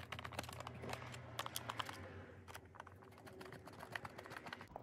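Small screwdriver driving screws into the plastic base of a toy solar windmill: faint, irregular clicking and ticking of the driver and the plastic case, thinning out after about two seconds.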